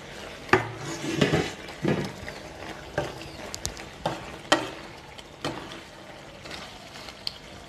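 Slotted spatula stirring and scraping through a thick simmering vegetable curry in a nonstick kadai, in irregular strokes about once a second, over a faint steady sizzle from the pan.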